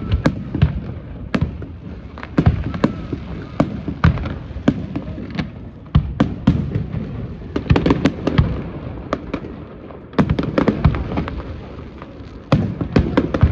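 Fireworks display: irregular sharp bangs and cracks, several a second at times, over a low rumble of shell bursts echoing.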